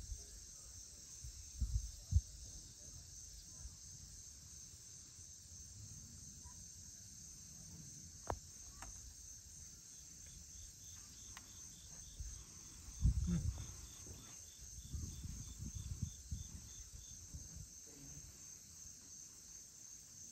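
Evening chorus of crickets: a steady, high, evenly pulsing trill. A fainter, lower pulsing insect call joins near the middle, with a few low rumbles and one sharp tick about eight seconds in.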